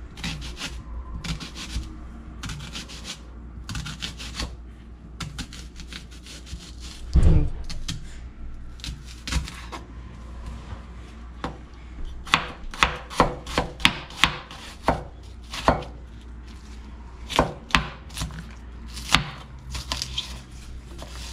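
Chef's knife cutting a red onion on a wooden cutting board: irregular knife strikes on the board, with one heavier knock about seven seconds in, then steadier chopping of about one or two strikes a second in the second half.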